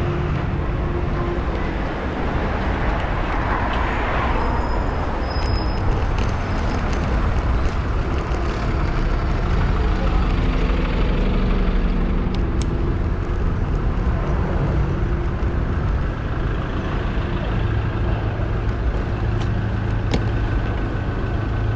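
Steady city road traffic heard from a moving bicycle: cars, buses and lorries running close by. There is a brief louder rush about four seconds in.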